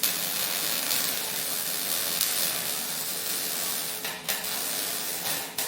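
MIG welding arc crackling and sizzling steadily as a bead is laid, breaking off briefly twice near the end and then stopping.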